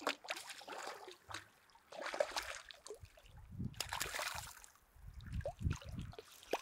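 A hooked brown trout splashing and thrashing at the surface of shallow water as it is brought to the landing net, in three bursts of splashing about two seconds apart.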